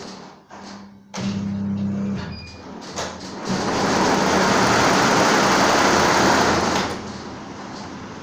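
CNY computerized embroidery machine running: a brief low motor hum about a second in, then a louder steady whirring for about three seconds that drops back to a lower running noise near the end.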